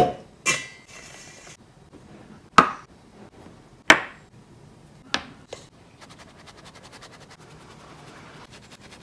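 A stainless steel mixing bowl and a mesh sieve knock and clink as they are handled and set down: several sharp clinks, one of them ringing briefly like struck metal. From about six seconds in comes a faint, fast, even rattle as the sieve is shaken and flour and cocoa powder sift through into the bowl.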